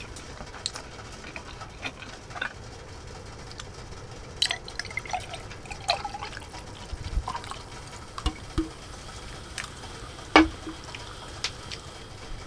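Beer poured into a hand-held glass, the liquid splashing and gurgling. Scattered light clicks of utensils and tableware, and one sharp knock near the end.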